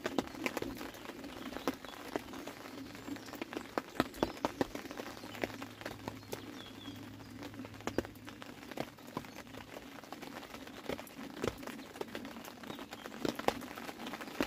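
Rain falling, with raindrops tapping irregularly and sharply close to the microphone over a steady patter. A bird chirps faintly a few times about seven seconds in.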